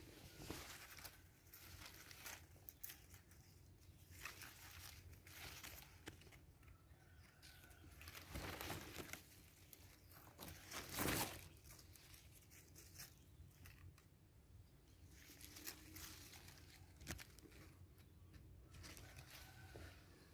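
Faint rustling and crinkling of ugu leaves being brushed and handled, in short scattered bursts, loudest about eleven seconds in.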